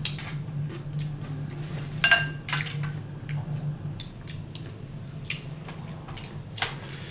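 Chopsticks and a spoon clicking and clinking against a metal tray of food, with one louder ringing clink about two seconds in. A low steady hum runs underneath.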